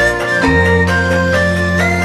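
Music: a high melody held in long notes that step up and down, over a low sustained bass note that shifts about half a second in, with a light steady beat.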